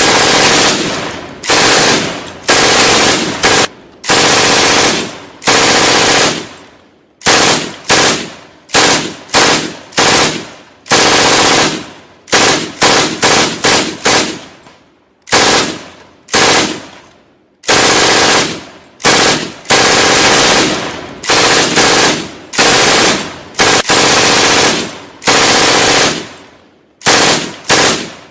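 Gunfight sound effect: repeated bursts of automatic gunfire, each loud burst followed by a short echoing decay, with brief gaps between them.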